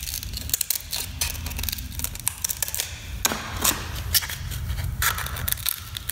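Serrated-edge scissors cutting through a sheet of sandpaper: a run of crisp snips mixed with the crackle of the stiff abrasive sheet being handled, over a low steady hum.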